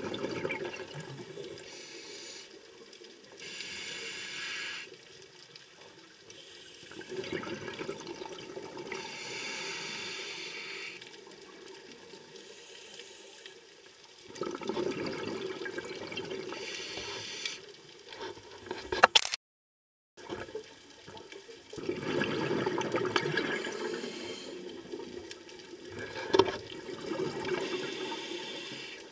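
Scuba regulator breathing heard underwater: hissing inhales alternate with rushes of exhaled bubbles, one breath cycle every several seconds. The sound drops out for about a second about two-thirds of the way through.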